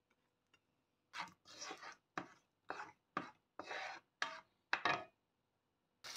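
A plastic spatula scraping and pushing onion and garlic around a non-stick frying pan: about eight short scratchy strokes, roughly two a second. Frying sizzle starts right at the end.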